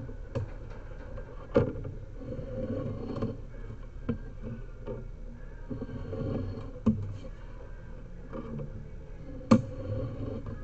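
Sewer inspection camera on its push cable being pushed forward and pulled back through the line: irregular sharp knocks and clatter, the loudest near the end, over a low rumbling.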